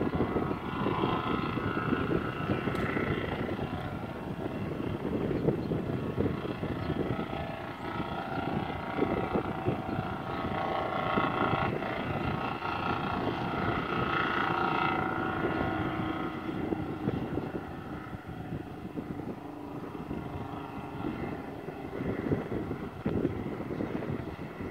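A 1965 FWD truck's two-stroke supercharged diesel engine running as the truck drives toward the listener: a steady drone with a whining note that shifts in pitch.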